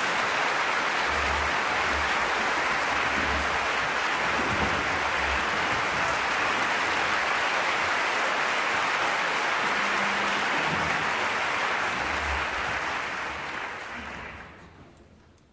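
Theatre audience applauding steadily, then dying away near the end.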